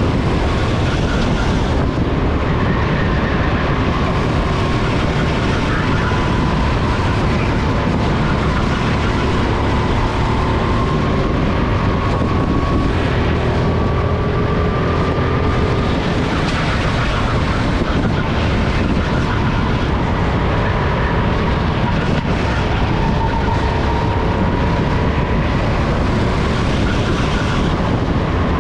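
Onboard a SODI RT10 go-kart at racing speed: its engine note climbs slowly for several seconds, then drops as it lifts off for a corner, twice over, under a heavy rumble of wind and vibration on the microphone.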